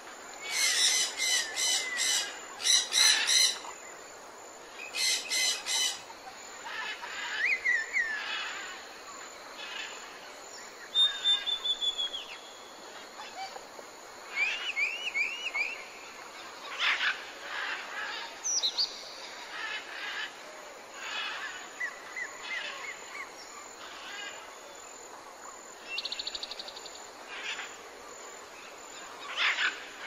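Several birds chirping and calling in turn: short rapid trills, quick rising chirps and brief whistled notes, over a steady background hiss.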